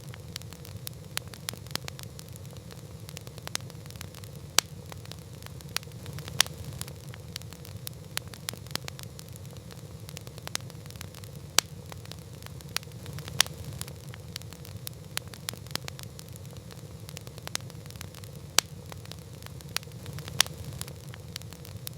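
Wood campfire crackling: frequent small snaps with a sharper, louder pop every second or two, over a steady low rumble.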